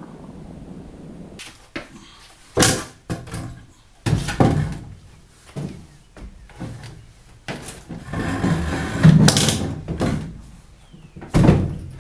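A string of knocks and thuds from work on a wooden rack, with a longer rough scraping noise about two-thirds of the way through. The loudest thud comes near the end.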